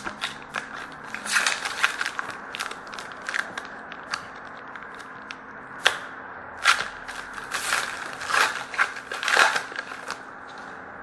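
Hockey trading cards being handled and shuffled through by hand: irregular papery clicks, snaps and rustles, coming thicker and louder in the second half.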